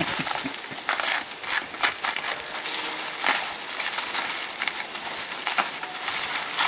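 Plastic bubble wrap crinkling and crackling as it is handled and cut open with a cutter, a continuous run of small sharp crackles.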